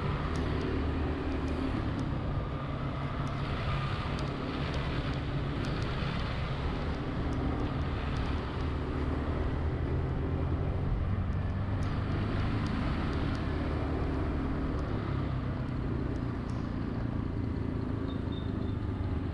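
A vehicle engine running steadily under even road and wind noise while driving through city traffic.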